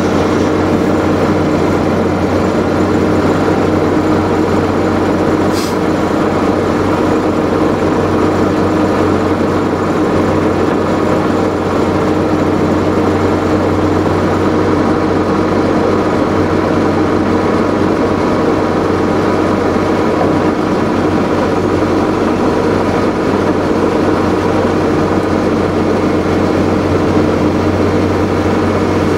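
Vehicle engine running steadily at low speed, heard from on board as the vehicle drives slowly along a road, with one brief click about five and a half seconds in.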